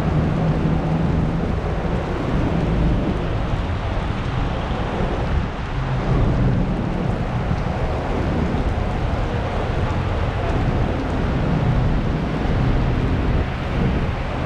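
Heavy rain falling steadily, a dense even hiss with a continuous deep low rumble underneath.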